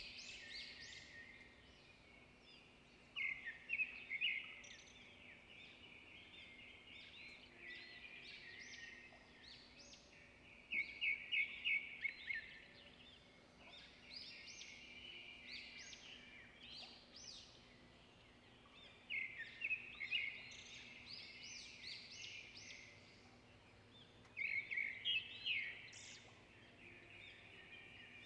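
Birds singing and chirping steadily, with a louder burst of rapid, repeated chirps every several seconds.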